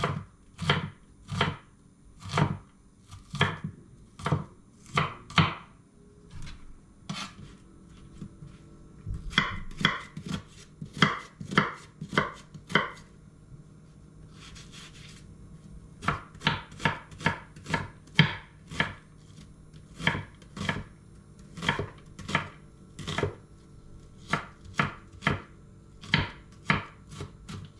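A kitchen knife chopping onion on a wooden cutting board, with sharp strokes about two a second and two pauses of a few seconds.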